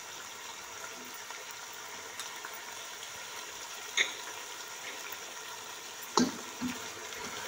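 Chicken pieces sizzling in hot oil in a nonstick pan: a steady frying hiss. Two light knocks break in, about four and six seconds in.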